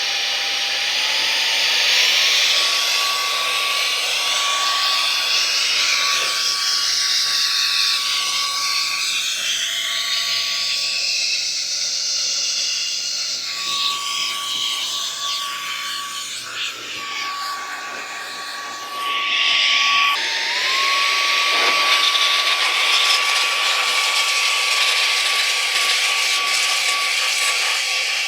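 Handheld electric air duster with a brushless motor blowing air, a steady high whine over a loud rush of air. The whine climbs in pitch as the motor spins up about a second in, and again about twenty seconds in.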